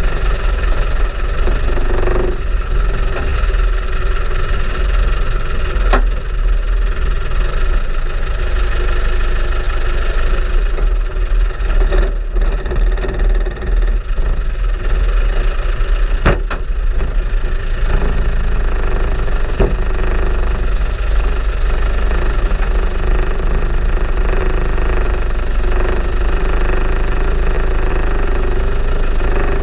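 Off-road vehicle's engine running at low speed as it crawls along a rutted, muddy lane, with a strong low rumble and a few sharp knocks, the loudest about sixteen seconds in.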